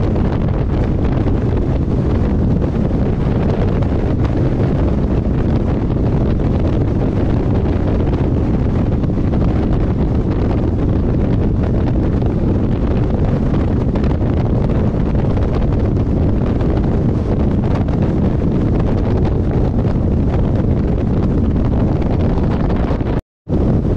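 Wind buffeting a microphone held out of a moving passenger train, over the steady running rumble of the train on the track. The sound cuts out for a split second near the end.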